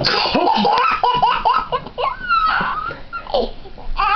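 A toddler laughing hysterically: a quick run of high-pitched belly-laugh bursts, then longer squealing laughs rising and falling in pitch.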